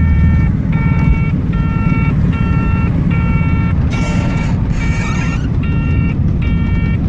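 An electronic buzzer beeping steadily, about once every three quarters of a second, over the low drone of a ZAZ-965 Zaporozhets's air-cooled V4 engine heard from inside the cabin. A short hiss comes about four seconds in.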